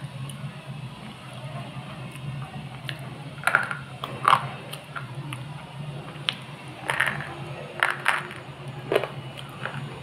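Sona-brand slate pencil bitten and crunched between the teeth: a series of sharp, dry, irregular crunches, the two loudest a little over a third of the way in and several more in the second half.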